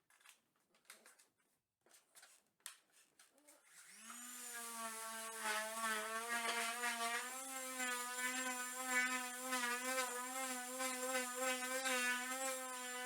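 A few faint knocks, then about four seconds in an electric woodworking power tool starts up, its pitch rising briefly before it settles into a steady, slightly wavering whine.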